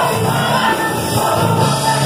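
Youth church choir singing a gospel song together, loud and without a break.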